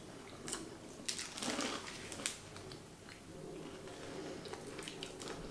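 Faint, scattered crunching and small clicks of people chewing a Cadbury Crunchie honeycomb chocolate bar, mostly in the first half.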